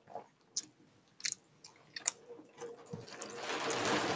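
Eating sounds from a man eating rice and egg curry by hand: a few short wet mouth clicks while chewing, then a louder, longer squishing swell near the end as he mixes rice with his fingers on a steel plate.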